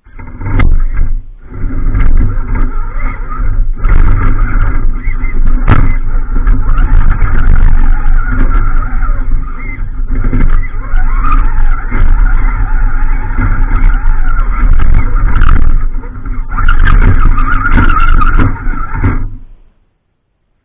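ATV engine running loud and close as the machine crawls over a rocky trail, with scattered knocks and clunks from rocks and the rack. The sound cuts off suddenly near the end.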